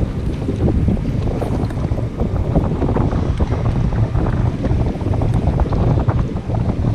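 Strong wind buffeting the microphone in a steady low rumble, with choppy water lapping against a boat hull.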